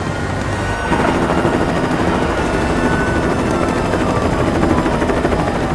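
Helicopter running close with rapid rotor chop, growing louder about a second in. A faint whine falls slowly in pitch throughout.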